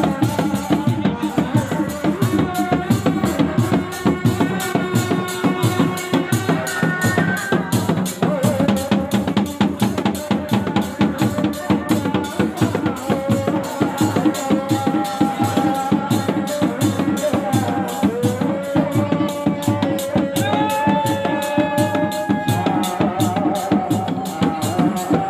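Reak ensemble music: dog-dog drums beaten in a fast, dense, driving rhythm, with a high melody of long held, wavering notes over it.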